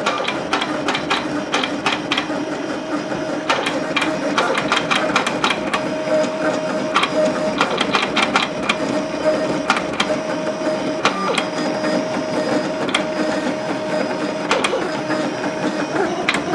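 PCut CT630 vinyl cutter plotting a design: a steady motor whine as the carriage and paper feed shuttle back and forth, with frequent sharp clicks.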